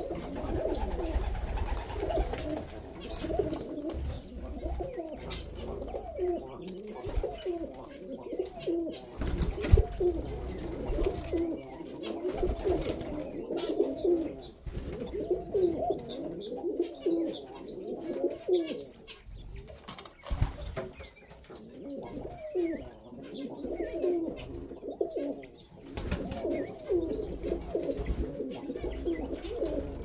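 Many domestic pigeons and doves cooing continuously over one another, with faint chirps of small birds above them and a couple of sharp knocks.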